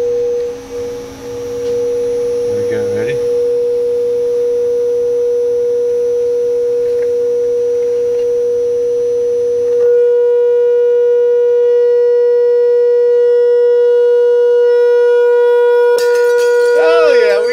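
Steady 483 Hz sine tone from a pair of CT Sounds 8-inch midrange speakers, tuned to the resonant frequency of a crystal wine glass. About ten seconds in it is turned up and grows louder and buzzier with added overtones. Near the end the glass shatters with a brief crackling crash while the tone keeps sounding.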